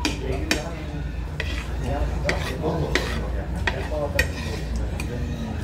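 Metal spoon and chopsticks clinking and scraping against a serving plate as saucy noodles are mixed, with irregular sharp clinks every half second to second.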